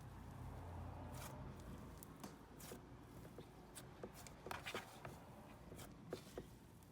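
Faint, scattered soft clicks and squishes of hands playing with a cloud cream slime.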